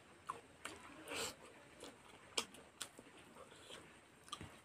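Quiet eating sounds: scattered wet mouth clicks and smacks of someone chewing a bite of rice and curry wrapped in a fishmint leaf, with a short hiss about a second in.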